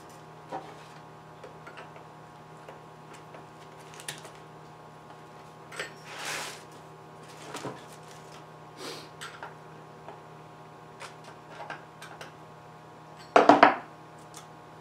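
Fitting the bar and chain onto a Holzfforma G255 chainsaw: scattered clicks and knocks of metal and plastic parts and the scrench, with a short scrape about six seconds in. A loud burst of knocks and rattles comes near the end.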